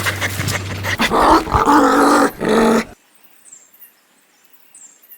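A dog panting quickly, then making loud, pitched vocal sounds for about two seconds that stop abruptly about three seconds in.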